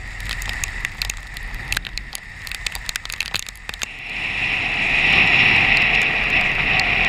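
Heavy raindrops striking a helmet-mounted camera on a moving motorcycle, an irregular patter of sharp ticks. About four seconds in, a steady hiss swells up and becomes the loudest sound.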